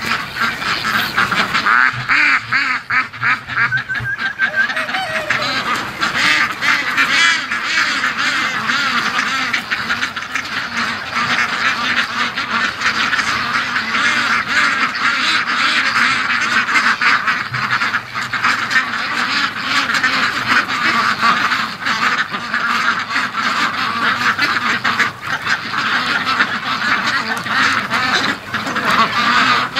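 A large flock of domestic ducks, mostly white Pekins, quacking without pause, many voices overlapping into a steady loud chatter.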